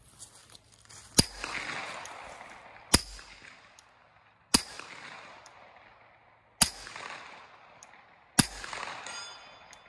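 Five shots from a 9mm pistol through a Microtech Defense Industries R2K9 suppressor, firing 115-grain full metal jacket rounds, spaced about two seconds apart. Each sharp report trails off into a drawn-out echo mixed with the ring of the steel target being hit, which is as loud to the shooters as the suppressed gun.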